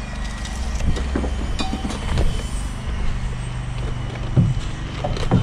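Steady low hum of an engine running, with a few scattered knocks; the loudest knocks come about four and a half seconds in and just before the end.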